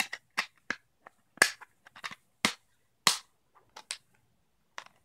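Clear plastic disc cases being handled: a string of sharp plastic clicks and snaps, the loudest about a second and a half and three seconds in.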